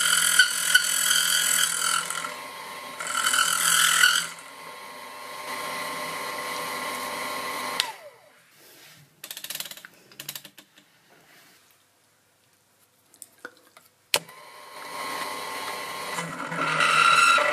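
Small milling machine running with a 6 mm end mill cutting, with loud high squealing and chatter from the cutter, which is typical of the edges rubbing when the feed is too slow and of a machine that is not rigid. The motor winds down about eight seconds in, a few faint clicks follow, and it starts again with a click near fourteen seconds, the squeal building again near the end.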